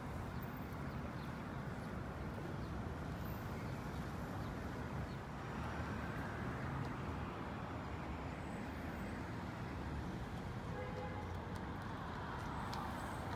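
Steady city street traffic noise, a constant low rumble of passing cars. Near the end the first faint clicks of a carriage horse's hooves on the pavement begin to come through.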